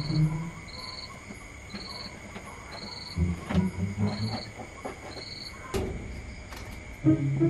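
Cricket chirping, a short high chirp repeating about once a second at an even pace, over a faint steady high hum. A few low bumps come about three seconds in and again near the end.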